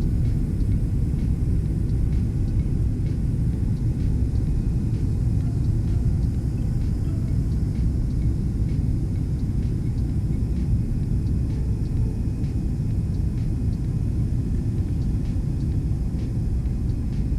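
Steady low rumble heard inside the cabin of a Boeing 777-300 airliner, with faint scattered knocks and rattles.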